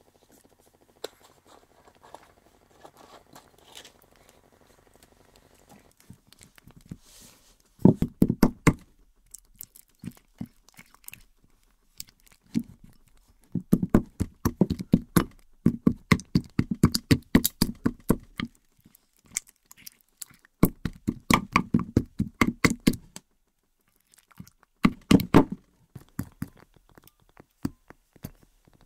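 A plastic spoon stirs and scrapes slime over lumps of dry ice in a glass bowl, making bursts of quick clicking, tapping and squelching with short pauses between them. The stirring starts about eight seconds in, after a faint steady hum.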